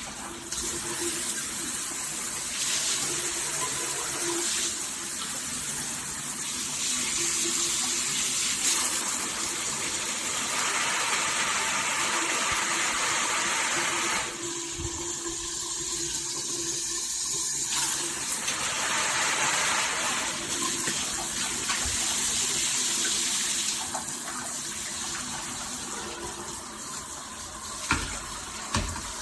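Water spraying steadily from a rainfall and handheld shower head combo, a full hiss that shifts in tone as the spray is moved or changed, and dulls for a few seconds about halfway through.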